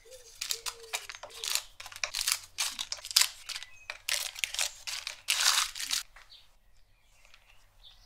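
Cheese rasping on a hand grater, then a plastic candy wrapper crinkling in the hands: a run of loud dry rasps and crinkles, several a second, that stops about six seconds in, leaving only faint handling sounds.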